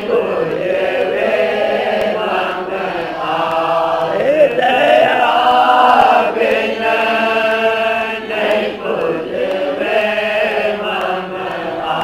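Devotional hymn (shabad) being chanted, with long held and gliding sung notes.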